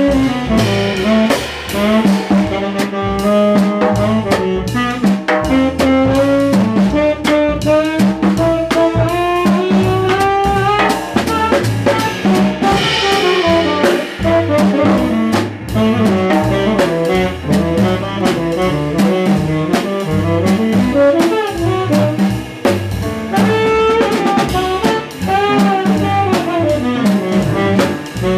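Jazz quintet playing live: a horn solo line weaving over piano, walking double bass and a drum kit with ride cymbal.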